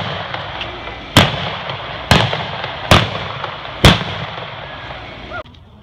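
Four single-action revolver shots with black-powder blanks, fired from a galloping horse at balloon targets, about one a second, each crack trailing off in the reverberant indoor arena.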